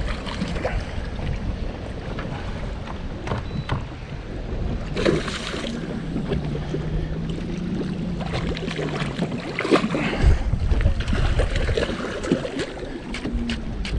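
Large northern pike thrashing and splashing at the surface beside an aluminum fishing boat during the fight, with wind on the microphone. A low steady hum sounds for a few seconds in the middle.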